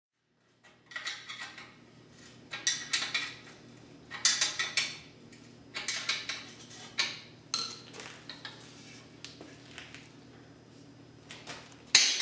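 Metal parts clinking and scraping against each other in repeated short bursts over a faint steady low hum, with the loudest clank near the end.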